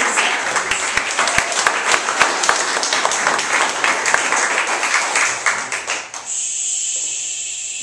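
Audience applauding, a dense patter of many hands clapping that dies away about six seconds in. A steady hiss follows for the last couple of seconds.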